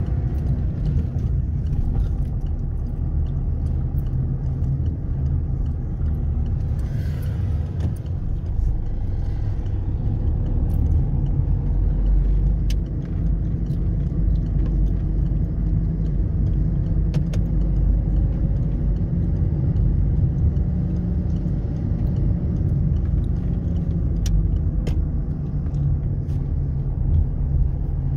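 Car driving along, heard from inside the cabin: a steady low rumble of engine and tyre noise, with a few faint clicks in the second half.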